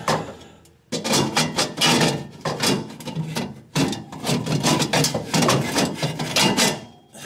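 Steel exhaust pipes clanking, knocking and scraping as a pipe with a bent collar is pushed and worked onto its mating pipe. The collar keeps binding. The rattling comes in two long runs of rapid knocks with a short pause between them.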